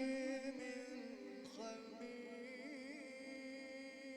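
A male Quran reciter chanting in melodic tajweed style, stretching a word of the verse into a long melismatic line on a held vowel. The pitch wavers in ornaments, steps down about a second in, and the voice slowly fades.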